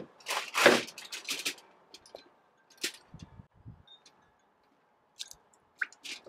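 Aluminium foil crinkling and rustling as a smoked goat front quarter is turned over on it, in a few bursts during the first second and a half. Sparse light clicks and a couple of dull thumps of the meat being handled follow.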